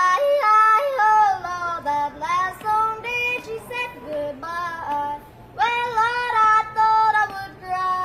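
A young boy yodeling, one voice singing in short phrases that flip quickly between low and high notes.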